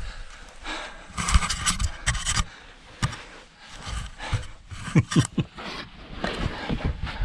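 A man breathing hard as he crawls on hands and knees through a low sandy rock crawl space, with the scuffing and scraping of his hands, knees and the hand-held camera on the ground and an occasional grunt.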